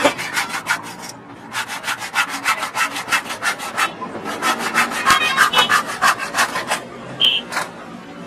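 Hand saw cutting through a wooden block in rapid back-and-forth strokes, in three runs broken by short pauses about one second and four seconds in; the sawing stops a little before the end.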